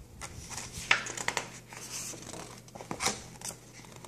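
Paper rustling, with scrapes and light clicks, as the page of a picture book is turned and handled.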